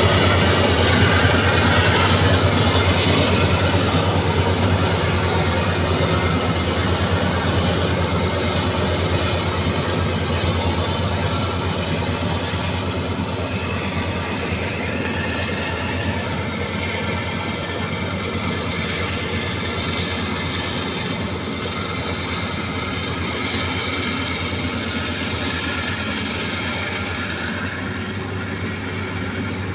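Bimo Maxxi 102 combine harvester running steadily with a low engine hum and the clatter of its machinery, slowly growing fainter.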